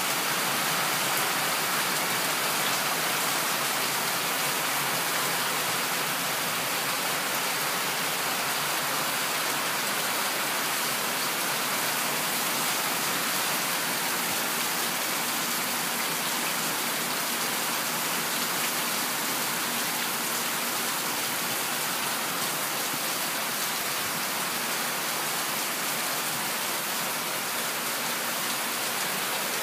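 Heavy rain falling steadily on a lawn and yard, a dense even hiss with no let-up.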